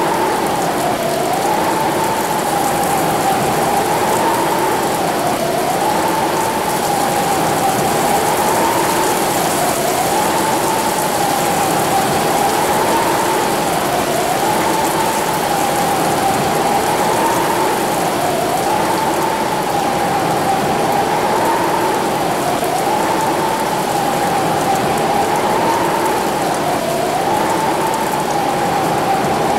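Heavy rain pouring down in a steady downpour. A steady high whine runs under it, dipping briefly in pitch about every four seconds.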